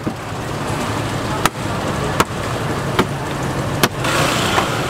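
Thin roti dough smacking against a stainless-steel counter as it is stretched out: four sharp slaps, starting about a second and a half in, spaced a little under a second apart. Under them is a steady hum of street traffic, which grows louder near the end as a vehicle passes.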